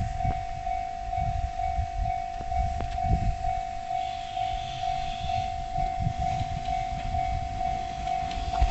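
Railway level-crossing warning bell ringing, a single pitched tone repeating at an even pace, over a low rumble with a few sharp clicks as a train nears.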